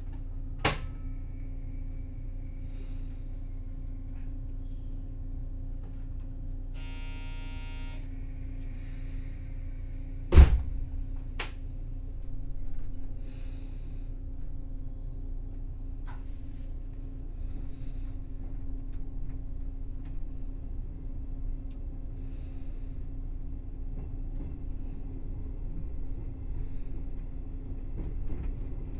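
A 381 series electric train standing at a platform, heard from inside its rear cab: a steady electrical hum and low rumble. A click comes just under a second in, a short buzzer about seven seconds in, and a heavy thump about ten seconds in, the loudest sound here. A short hiss follows soon after, and near the end the train starts to move off.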